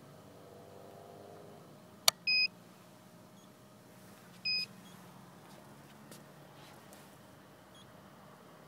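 Robofocus Model 3.1 focuser control box giving a sharp click, then two short high-pitched electronic beeps about two seconds apart.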